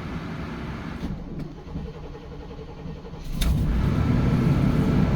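Motorhome engine cranking on the starter, catching about three and a half seconds in, and settling into a steady idle, heard with the hood closed.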